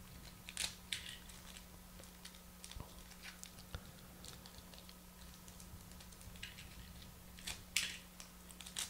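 Foil trading-card pack wrapper being handled and torn open along its crimped top seam: a run of faint, scattered crackles, with a few louder crinkles about a second in and again near the end.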